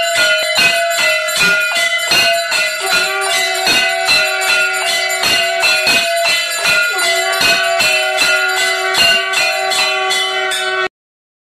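Temple bells rung rapidly and continuously during aarti, several ringing strokes a second. A second, lower-pitched bell tone joins about three seconds in. The ringing cuts off suddenly near the end.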